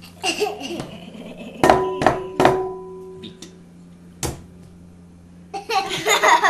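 A glass mixing bowl knocked three times in quick succession, each knock leaving a short ringing tone, then one duller knock a couple of seconds later.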